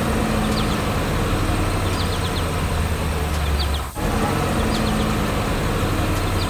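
A heavy diesel engine drones steadily. It drops out for an instant about four seconds in and starts again. Short bird chirps recur over it.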